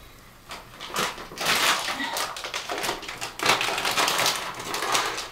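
Crinkling and rustling of a plastic bag being handled, a dense run of crackles starting about a second in.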